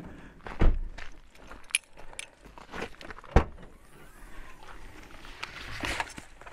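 Knocks, clicks and light steps of getting out of a parked car and handling gear, with two heavier thumps, one about half a second in and one about three and a half seconds in.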